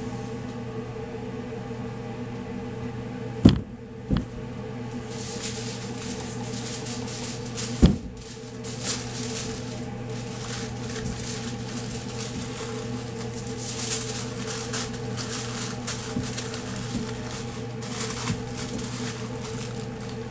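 Aluminium foil crinkling and rustling as a smoked brisket is wrapped in it on a steel table, over a steady machinery hum. Three sharp knocks come in the first eight seconds, before the crinkling sets in.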